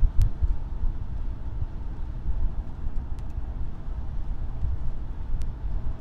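Cabin sound of a 1994 Lincoln Town Car cruising: a steady low rumble of engine and road noise, with a few faint clicks.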